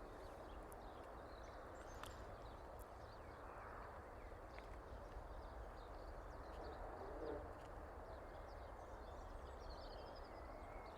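Faint outdoor ambience: a steady low background hiss with small birds chirping and twittering here and there.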